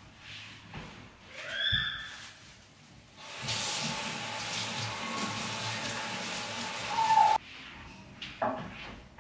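Steady rush of falling water, starting abruptly a little after three seconds in and cutting off about four seconds later.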